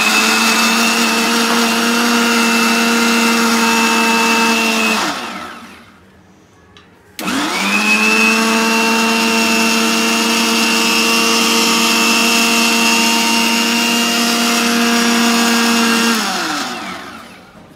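Electric mixer grinder blending soap and water: the motor runs at a steady whine for about five seconds, spins down, then is switched on again for about nine seconds before spinning down once more.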